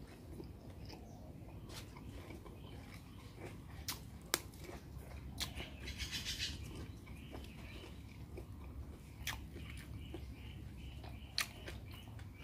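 Mouth noises of a person chewing a leaf-wrapped bite of bamboo-shoot salad, with scattered sharp smacks. A short crisp rustle about six seconds in, as a fresh leaf is folded around the next bite.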